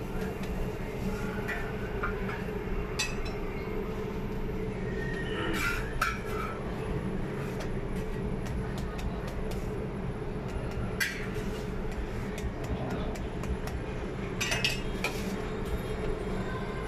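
A few scattered metal clinks and scrapes of a spatula and tongs against a domed saj griddle as a folded flatbread is turned on it, over a steady low hum of kitchen equipment.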